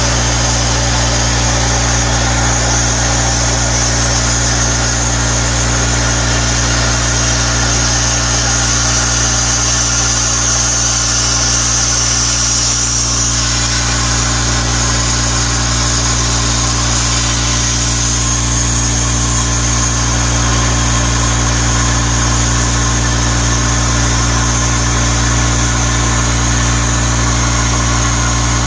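CNC plasma torch cutting steel plate: a loud, steady hiss from the cutting arc and its air jet over a constant low machine hum.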